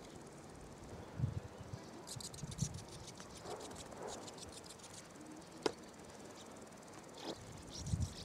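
Faint, dry, rasping chatter of sand martins in short runs of rapid ticks, with a few low thumps.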